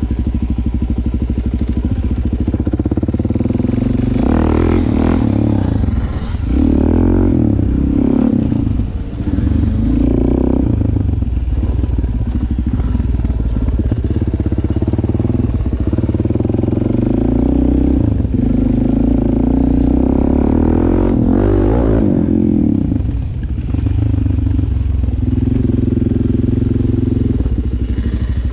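Dirt bike engine running as it is ridden, the revs rising and falling with the throttle, with brief drops in revs about nine seconds in and again around twenty-three seconds.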